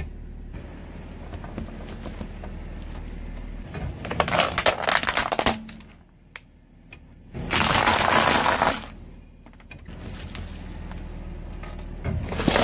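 Car tyre rolling over and crushing objects: a quick run of plastic cracking and crackling about four seconds in, then a louder, longer crunch a few seconds later. A low steady hum sits under the first few seconds.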